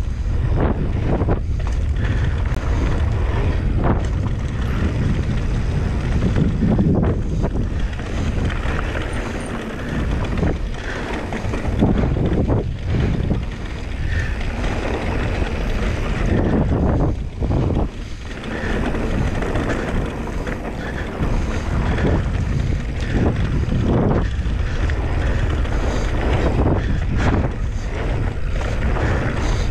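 Wind rushing and buffeting over the camera microphone while a mountain bike is ridden at speed along a dirt trail, with the rumble surging and dipping and a few short knocks from the bumps.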